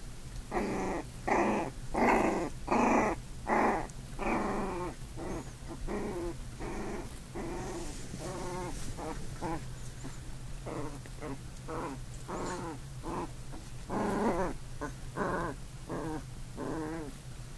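Puppies growling at each other while play-fighting. A quick run of loud growls comes in the first few seconds, then softer, higher growls, and another loud pair toward the end.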